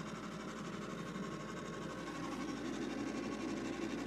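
Steady low mechanical hum, like a small motor or appliance running, with a faint high steady tone above it.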